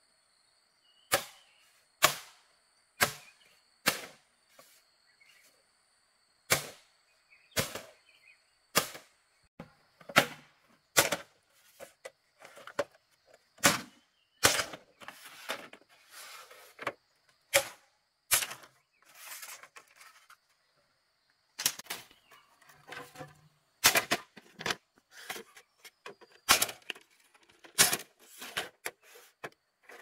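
A hand tool striking repeatedly with sharp knocks, about once a second at first, pausing briefly past the middle, then coming quicker and more unevenly near the end. A steady high insect tone sounds behind the strikes until about two-thirds of the way through.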